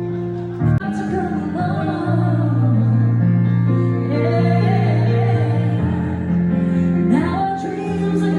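A song with a singing voice over held chords and a steady bass line, with a short loud hit less than a second in.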